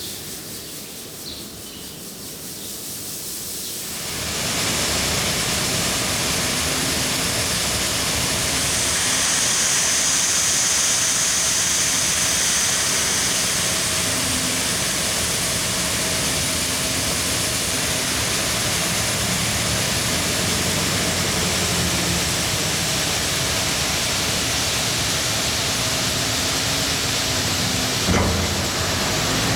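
Heavy harvesting machinery running in the maize: a dense, steady rushing noise with a faint engine hum beneath it. It jumps sharply louder about four seconds in, and there is a single brief knock near the end.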